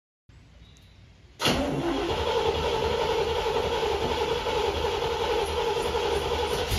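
C3 Corvette V8 starting up about a second and a half in, then idling steadily through used side pipes with built-in mufflers.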